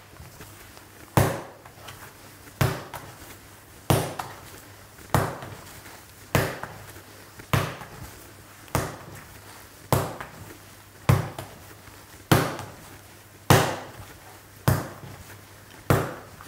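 Soft bread dough slapped down onto a wooden workbench and folded over, about thirteen slaps at an even rhythm of roughly one every 1.2 seconds. This is hand kneading by the slap-and-fold method, building the dough's strength.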